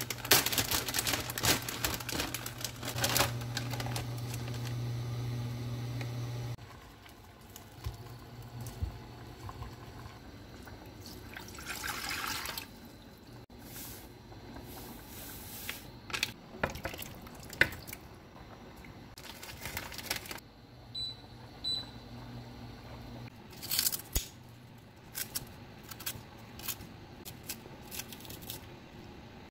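Kitchen sounds at an induction hob. For the first six seconds a low steady hum runs under rustling as dried glass noodles are tipped from a bag into a pot of water. Near the middle, sauce is poured into a pot of water. Later, scattered sharp clicks and snips come from kitchen scissors cutting vegetables into the pot.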